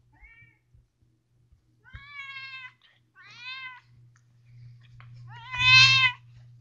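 Pet cat meowing: a faint short call at the start, two meows in the middle, and a loud meow near the end.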